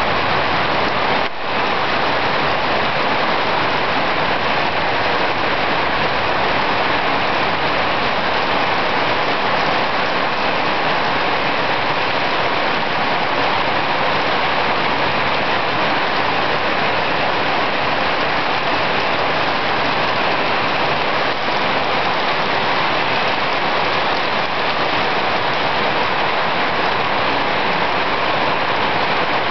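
Steady rain falling, an even, unbroken hiss with a brief dip in level about a second in.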